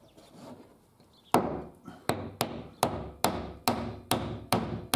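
A quick run of sharp knocks on timber, about two to three a second, starting about a second in. A wooden staircase part is being knocked into position.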